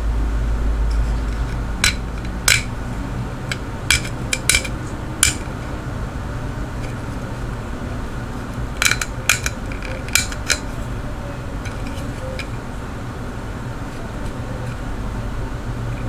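Small textured-plastic Gerber diamond-and-ceramic pocket knife sharpener handled and turned over, its casing giving about a dozen sharp clicks and taps in two clusters, over a steady low hum.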